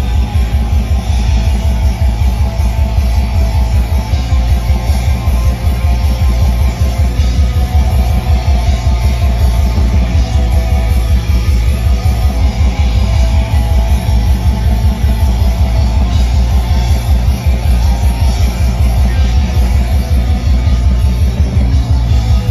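Live black metal played loud by a full band: heavily distorted electric guitars holding sustained chords over rapid, relentless drumming, with no let-up, heard from within the audience.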